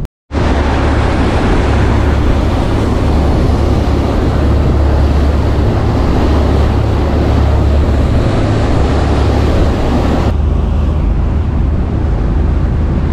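Party fishing boat under way: a steady low drone from its engines, mixed with the rush of wind and wake water. The hiss eases about ten seconds in.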